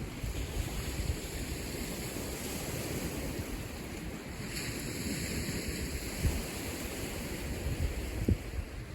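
Lake Michigan waves washing against the shore, a steady rushing wash with a brighter surge about halfway through. Wind gusts buffet the microphone with low rumbles.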